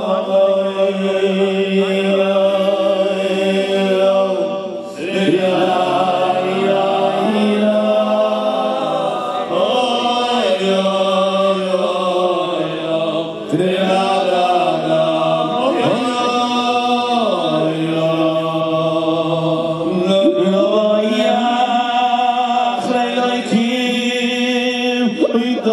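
Voices chanting a slow melody whose pitches glide and bend, over a low note held throughout.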